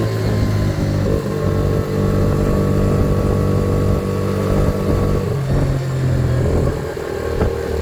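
Yamaha Raptor 80 quad's small single-cylinder four-stroke engine running under way on its newly fitted replacement carburetor, pulling strongly. Its pitch holds steady, drops about five seconds in, then changes again near the end.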